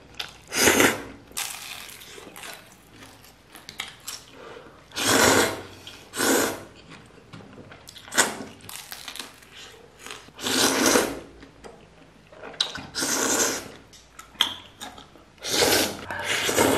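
A person slurping hand-pulled noodles from chopsticks: loud slurps about every one to two seconds, with quieter chewing between them. Near the end comes a longer slurp as he drinks broth straight from the bowl.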